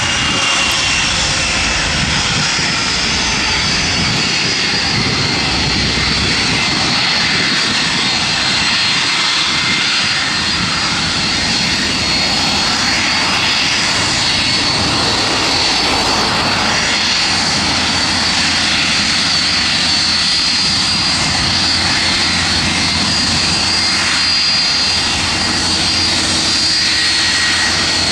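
Jet engines of a Boeing 757-200 at taxi power: a steady rush with a high whine that drifts slightly down in pitch during the first few seconds, then holds.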